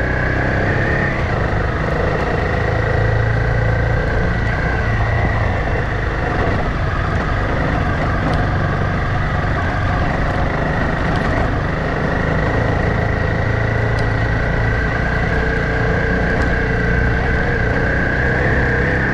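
Honda CRF trail motorcycle's engine running on the move at a mostly steady pitch, with a constant rush of noise beneath it.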